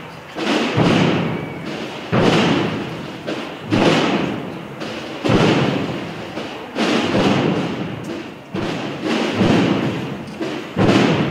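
Procession drums, bass drums and snare drums, beating a slow march: a heavy stroke about every one and a half seconds, each ringing away before the next, with lighter strokes in between.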